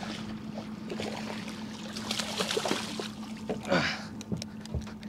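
Water sloshing and knocks around a small aluminium fishing boat while a hooked fish is brought alongside, with scattered clicks and a noisy spell about halfway through.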